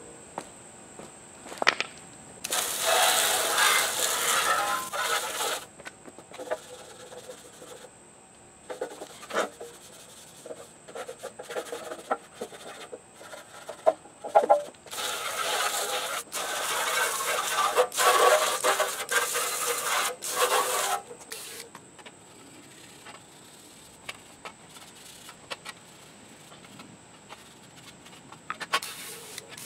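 Hand brush scrubbing a metal bumper reinforcement bar on wet concrete: two long bouts of rapid rubbing strokes, the first about three seconds and the second about six, with scattered knocks between.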